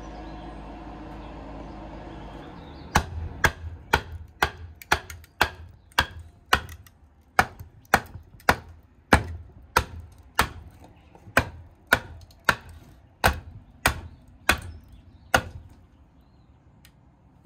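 A kukri being batoned down through a standing piece of wood: a wooden baton knocks on the blade's spine about twenty times, roughly two sharp strikes a second, splitting the wood. A steady low hum is heard for the first couple of seconds, before the strikes begin.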